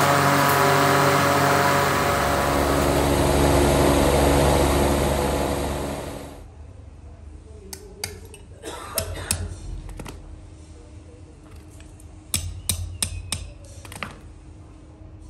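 Electric motor of a bench polishing wheel running with a steady hum while a knife handle is buffed against it. About six seconds in it cuts to a quieter room, where sharp metallic clicks and taps come in scattered clusters as a small metal piece is handled on a steel block.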